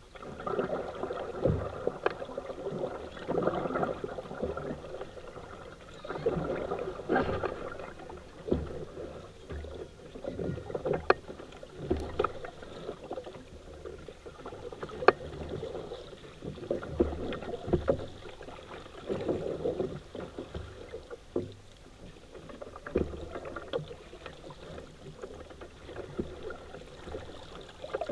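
Paddle strokes splashing and swishing in river water every couple of seconds, at an uneven pace, with a few sharp knocks in between.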